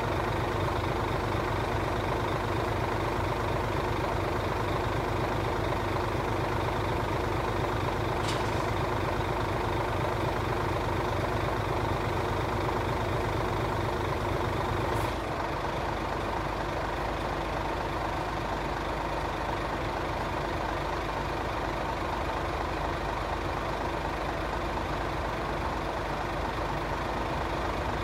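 Class 66 diesel-electric freight locomotive's two-stroke V12 engine running steadily as it approaches slowly, the sound dropping a little about halfway through.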